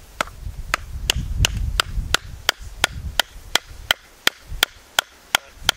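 Wooden mallet hammering oak wedges into the top of a log, a steady run of sharp knocks about three a second, driving the wedges in to split the log along its pith.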